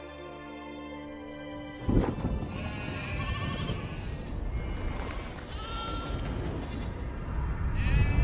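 A held chord of film-score music that gives way about two seconds in to a sudden loud, low rushing noise. Over it, a flock of sheep bleats several times.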